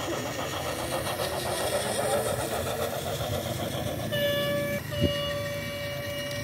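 Battery-powered toy train rattling along plastic track. About four seconds in, a steady electronic horn tone sounds, cut briefly by a sharp click, then carries on.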